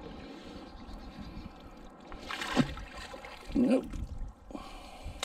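Canal water splashing and trickling as a magnet-fishing magnet is hauled through the water on its rope, with two louder splashes about halfway through.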